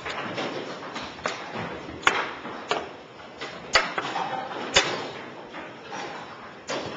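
Chess pieces being set down on a board and a chess clock being struck in a quick game: a series of sharp wooden knocks and clicks, about six in seven seconds at an uneven pace, over a steady room noise.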